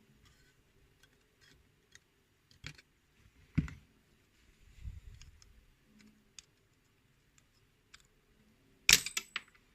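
Small metallic clicks of tools working on a euro cylinder lock as it is taken apart, then a sudden loud metallic clatter near the end as the pins and springs spill out of the cylinder.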